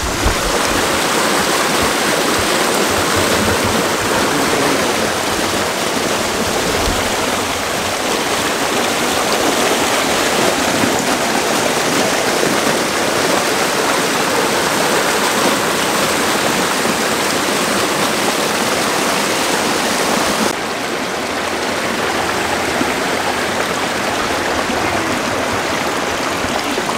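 Water rushing and splashing over rocks in a small waterfall cascade, a steady loud rush. About two-thirds of the way through the sound changes suddenly and becomes a little quieter and duller.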